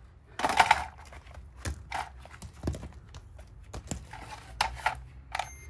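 A series of knocks and clunks from a hard plastic battery case being handled and a digital scale being set down on gravel, the loudest about half a second in.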